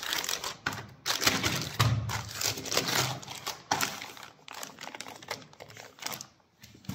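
Clear plastic zip-lock bag crinkling and crackling as it is handled, in irregular spells with short pauses.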